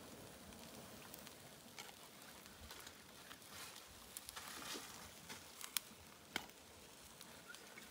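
Faint scattered clicks and ticks over a quiet hiss, with two sharper clicks a little past the middle.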